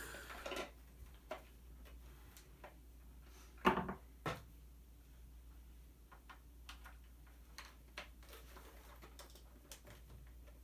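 Scattered light clicks and taps of a screwdriver working at the screws of a plastic toy, with a louder knock a little under four seconds in and another soon after.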